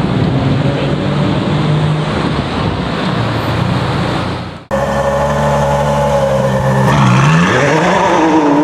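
Car engines running in slow city traffic, with street noise. About four and a half seconds in the sound cuts off abruptly and switches to a louder engine note, whose pitch dips and rises near the end.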